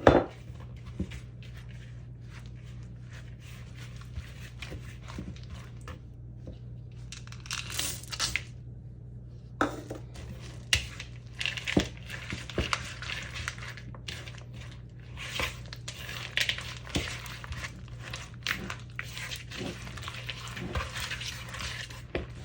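Sweetened shredded coconut being poured and stirred in a mixing bowl: irregular crinkling and scraping with scattered light clicks of a utensil against the bowl, over a steady low hum.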